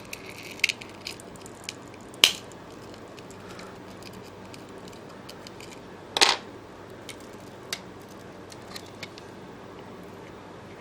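Small clicks and scrapes of a pry tool working under the cracked touchscreen glass of a phone, with two louder sharp snaps, about two and six seconds in.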